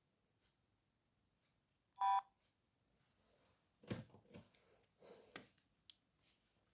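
A ZTE Smartfren feature phone gives one short two-tone electronic beep, like a keypad tone, about two seconds in. From about four seconds in there are scattered clicks and rustles as the handset is handled.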